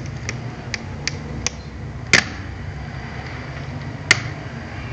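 Sharp plastic clicks from a laptop's keyboard and case as fingers press on it, about six at uneven intervals, the loudest a little over two seconds in. A steady low hum runs underneath.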